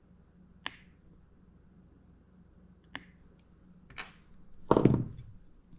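Small hard objects being handled on a workbench: three separate sharp clicks, then a louder knock near the end as something is set down or bumped.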